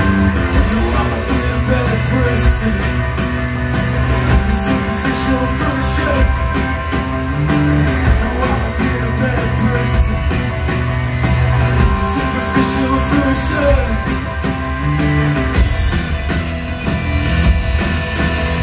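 A post-punk band playing live, with a steady drum beat, bass, electric guitar and keyboard, and a singer's voice over them.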